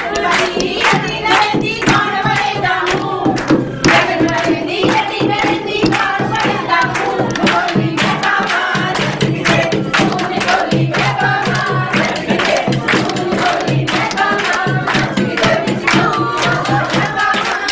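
A group singing a folk song to brisk, rhythmic hand clapping, several claps a second, over a steady low drone.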